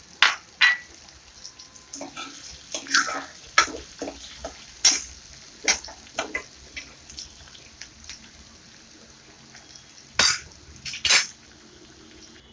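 Steel ladle scraping and clinking against a metal kadhai as chopped onion and masala paste are stirred and fried in oil, in irregular strokes, with two louder scrapes a little after ten seconds in.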